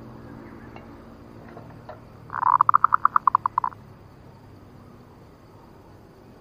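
Zebra dove (perkutut) calling: a quick run of about a dozen short cooing notes lasting about a second and a half, a couple of seconds in.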